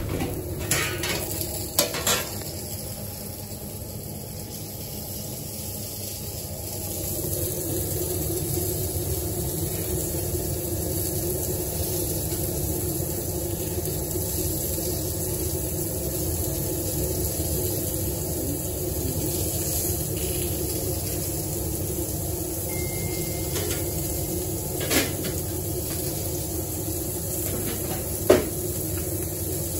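Köfte patties and sucuk slices sizzling on a charcoal grill grate over a steady hum, with a few sharp knocks, the loudest near the end.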